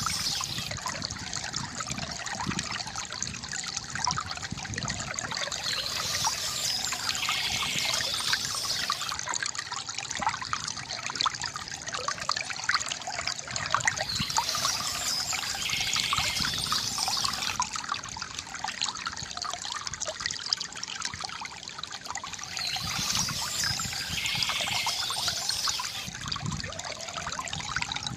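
Small stream trickling and babbling steadily over stones, with a brighter, hissier swell that returns about every eight seconds.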